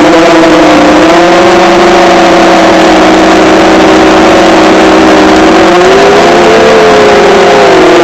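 FPV quadcopter's electric motors and propellers whining, heard from the onboard camera, loud enough to overdrive the microphone. The pitch dips about a second in, climbs again around six to seven seconds, and drops once more near the end as the throttle changes.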